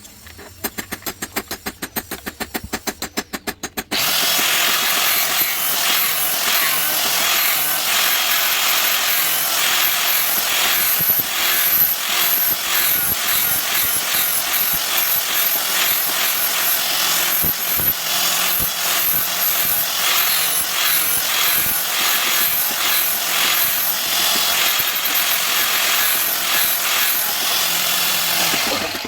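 Abrasive power tool working the steel of a knife blade, a steady loud grinding noise that starts about four seconds in, after a few seconds of rapid even ticking.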